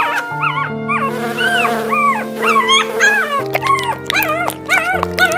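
Short whining cries, dog-like whimpers that rise and fall in pitch, repeated two or three times a second over background music with held chords.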